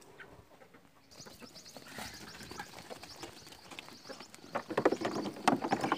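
Small birds chirping steadily in quick high notes, with sheep knocking and clattering against a feeding trough as they eat, louder in the last second or two.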